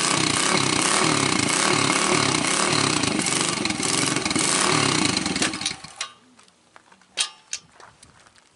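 Small single-cylinder four-stroke engine of a 2012 Kawasaki KLX 110 dirt bike running loud and harsh with an uneven pulsing beat, then cutting out about six seconds in. A few light clicks and knocks follow.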